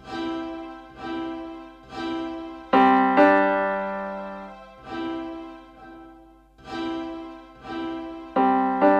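Slow solo piano music: notes or chords struck about once a second, each left to ring and fade, with two strikes in quicker succession near the end.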